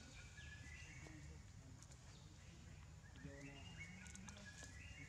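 Near silence: faint outdoor ambience with a low steady hum and birds calling in the distance, in two short runs of chirping notes, one near the start and one from about three seconds in.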